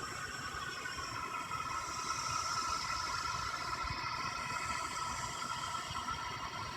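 An unidentified steady droning noise from the sky, made of several high tones held together over a low rumble, which the listener calls a really weird noise.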